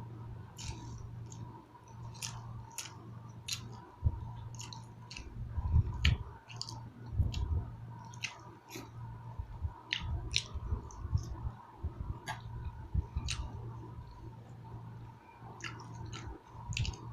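Close-up chewing and wet mouth smacks of someone eating, many short irregular clicks, with a low steady hum underneath.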